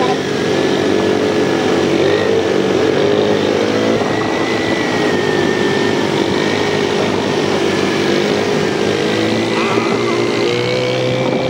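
ATV engine running under way, its pitch wavering slightly up and down with the throttle.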